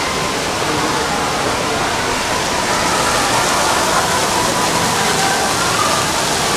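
Steady rush and splash of a plaza fountain's water jets, with a murmur of people's voices under it.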